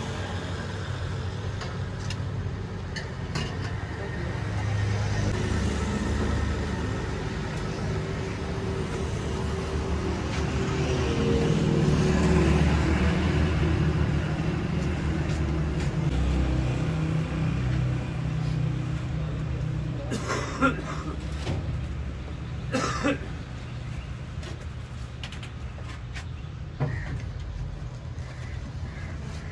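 Roadside traffic: motor vehicle engines running past, loudest about a third of the way in, with a few sharp clatters later.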